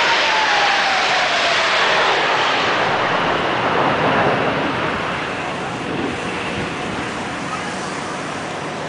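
Roar of a formation of jet fighters flying past low overhead. A whine falls in pitch over the first two seconds as the jets pass, and the roar slowly fades from about halfway through as they fly off.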